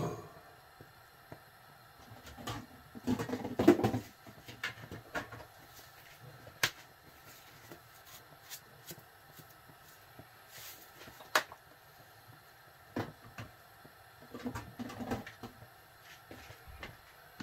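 Kitchen handling noises: scattered clicks and knocks of utensils, containers and cupboards, louder around three to four seconds in and again near the end, over a faint steady background.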